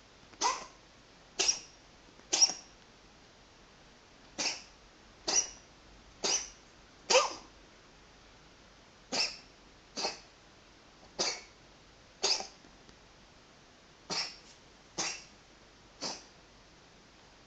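A domestic cat coughing in a fit: about fourteen short coughs, roughly one a second, in runs of three or four with brief pauses between. The coughing stops near the end.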